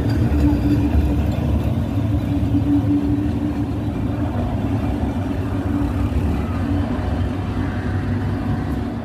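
Passenger train's coaches rolling along the track past the platform and pulling away: a steady low rumble with a hum that drops off about halfway as the last coach goes by, the whole slowly getting quieter.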